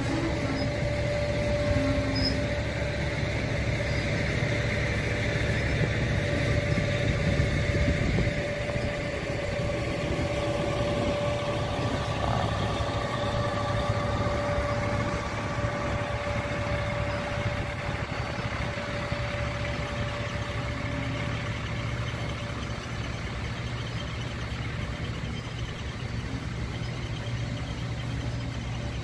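Slow-rolling Herzog rail train passing, its diesel engine running steadily with a steady whine, then slowly fading as the truck riding the rails at the end of the train moves away.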